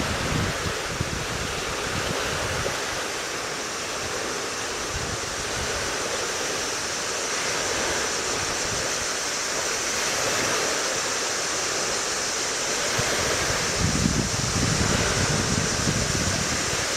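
Steady rushing wind noise, an even hiss. Low rumbling buffets of wind on the microphone return near the end.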